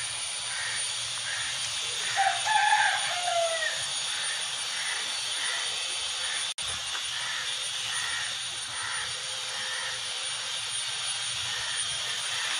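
Garden ambience: a steady high hiss with faint chirps repeating about twice a second, and a short call falling in pitch about two seconds in. The sound drops out for an instant just past halfway.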